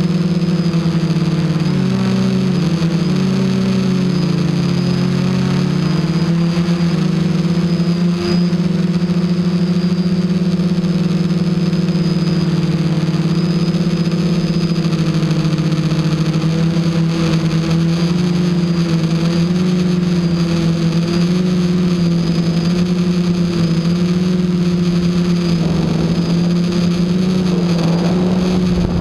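Electric motors and propellers of a Hoverthings Flip FPV quadcopter whirring steadily, heard close up through the aircraft's own camera, several close pitches weaving around one another as the motor speeds shift. A rougher rush of noise joins in near the end.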